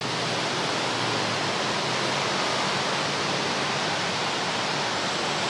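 Steady, even hiss of outdoor background noise picked up by a live field microphone, with no separate events in it.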